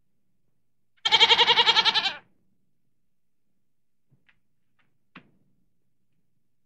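A goat bleating once, a single quavering bleat a little over a second long, starting about a second in.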